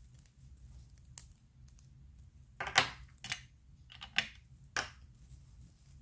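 A few sharp clicks and taps of small plastic craft items handled and set down on a hard craft mat: ink stamp pads being picked up and put away. The loudest click comes a little under three seconds in.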